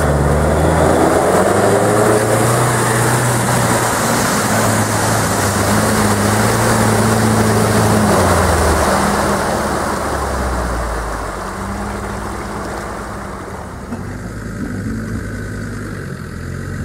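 Off-road 4x4's engine working under load, its note rising and falling as the throttle changes, over a wash of tyre and mud noise. It eases off about ten seconds in.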